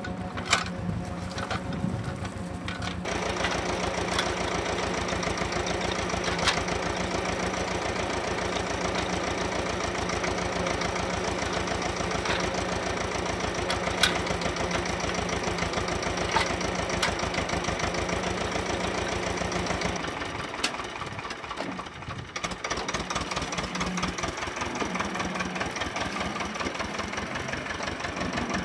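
Ursus C-328 tractor's two-cylinder diesel engine running steadily with a rapid, even beat; its note shifts about 3 s in and again about 20 s in. A few sharp knocks stand out over it.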